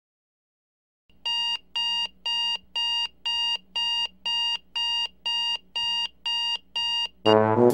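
Smartphone alarm going off: a short electronic beep repeated about twice a second. Near the end, brass music comes in over it.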